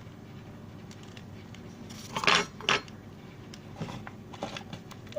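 Two brief clinks of small hard objects being handled, a little over two seconds in, over a low steady background.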